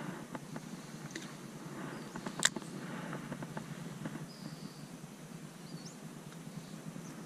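Outdoor lake ambience: a few short, high bird calls over a low, steady background rumble, with faint ticks and one sharp click about two and a half seconds in.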